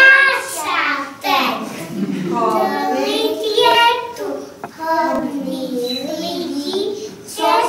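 Young children singing a song together, unaccompanied.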